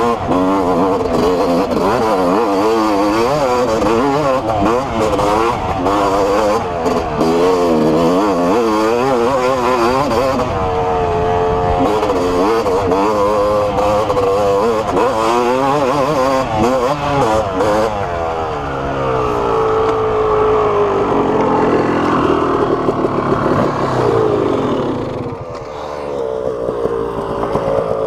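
Yamaha YZ250 two-stroke single-cylinder dirt bike engine under way, revving rapidly up and down with the throttle for most of the time, then holding steadier from about two-thirds in and dropping in level near the end.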